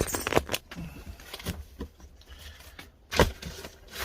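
Parts of an LED batten light fitting being handled and worked on: short scrapes and clicks, then one sharp knock about three seconds in.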